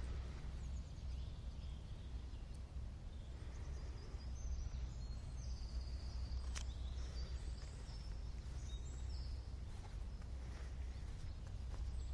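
Outdoor ambience of a steady low rumble with small birds chirping faintly in the trees from about four seconds in, and a single sharp click about halfway through.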